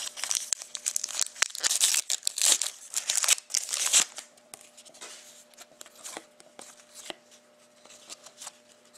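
Foil wrapper of a Panini Contenders hockey-card pack being torn open and crinkled for about the first four seconds, then quieter rustling and light clicks as the cards are handled.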